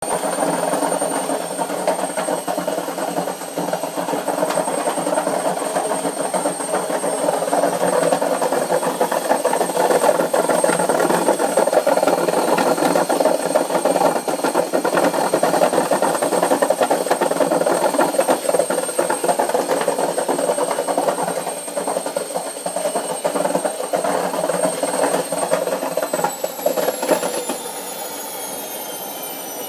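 Noisy washing machine running with a loud, steady rattling drone and a thin high whine. Near the end the whine falls in pitch and the noise drops off.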